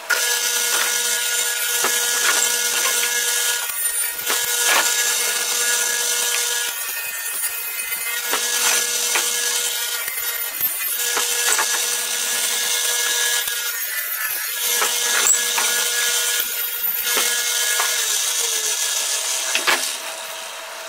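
Table saw running with a steady whine while its blade rips through an oak log held in a wooden sled jig, in repeated passes; the cutting noise swells and eases every few seconds as each pass goes through, with sharp knocks now and then.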